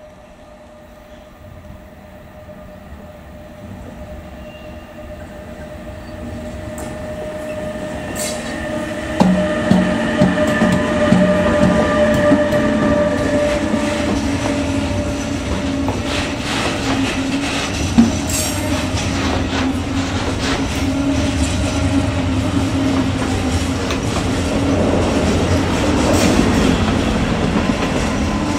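Freight train approaching and passing: a steady tone grows louder over about the first nine seconds as it draws near, then the train rolls by in a continuous rumble with many short knocks and clatter to the end.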